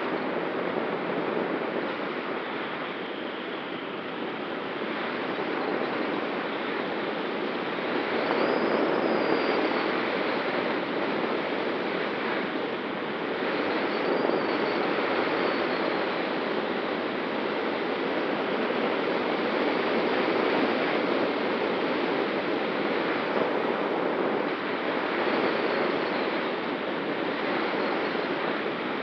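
Steady rushing of air over a camera mounted on the wing of an ASW 19 glider in gliding flight, swelling a little now and then, with a faint steady hum underneath.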